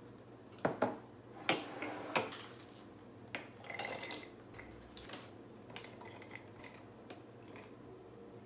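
A metal scoop clinking against an enamel pot and glass mason jars as oats are spooned in, four sharp knocks in the first couple of seconds, then a brief rustle of a plastic bag about four seconds in and lighter clicks of jars and lids.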